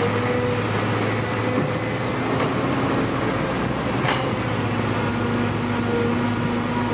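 Electric gear motors of a HuiNa radio-controlled toy excavator whining at a steady pitch in short stretches as they start and stop, over a steady noisy hum; one sharp click about four seconds in.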